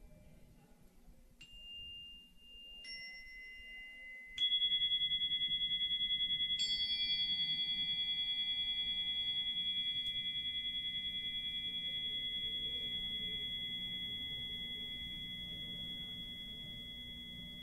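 Four strikes on high-pitched metal chimes or tuning forks, the third much the loudest. Their clear ringing tones overlap, pulse slightly and fade slowly.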